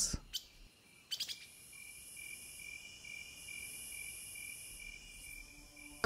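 Faint night-forest ambience: a few short chirps about a second in, then crickets chirring in a steady, pulsing trill.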